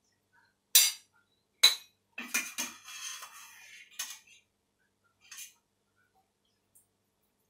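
A metal ladle knocks against a saucepan and a ceramic bowl while blanched noodles and greens are scooped from the pot. There are two sharp clinks about a second in, then a clatter of knocks for about two seconds, and one lighter knock near the end.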